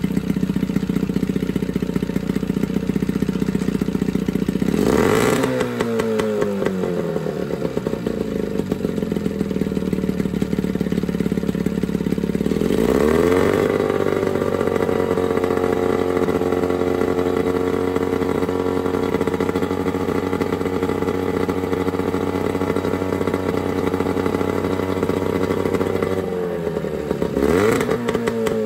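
Johnson 9.9 two-stroke outboard running on a stand with a freshly rebuilt carburetor while its air mixture is fine-tuned. The revs drop about five seconds in, climb around thirteen seconds and hold steady, then fall again near the end, each change with a brief clatter.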